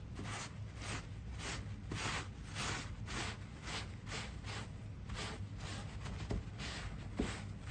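Wad of paper towels dabbed repeatedly onto stained carved plaster rock, blotting off the excess stain: a soft papery rustle and pat about three times a second, over a low steady hum.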